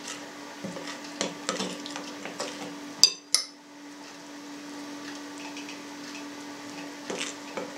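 Spoon stirring flour and water in a glass bowl, with light clicks and scrapes against the glass; about three seconds in, a sharp clink of glass, then the soft hiss of flour being poured into the bowl, with a few more clicks near the end.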